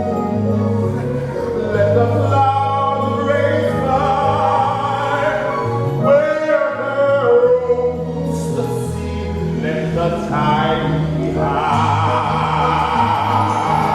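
Musical theatre singing with live accompaniment: sustained, wavering sung notes over a steady bass line, with a fuller, brighter ensemble entering about eleven seconds in.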